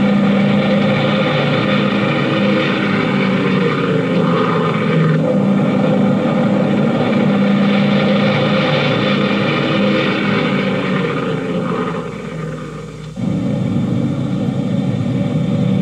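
Multi-engine propeller aircraft running loudly and steadily. The sound sags a little around twelve seconds in, then comes back abruptly louder just after thirteen seconds.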